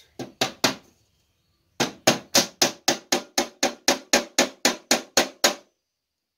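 Small hammer striking a wooden drawer bottom, knocking down the bottom panels and center support. Three quick blows, a pause of about a second, then a steady run of about sixteen blows at roughly four a second.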